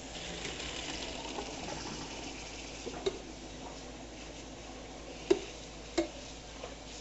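Water splashing as cooked macaroni is drained in the kitchen sink, with a few sharp knocks in the second half, the loudest two near the end.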